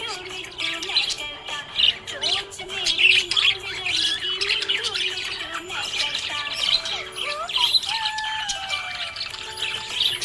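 Budgerigar chirping and warbling in a busy, unbroken stream of quick chirps and squawks.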